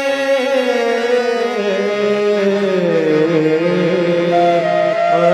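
A devotional kirtan being sung with instrumental accompaniment, the voice holding long notes that slide slowly down in pitch and back up.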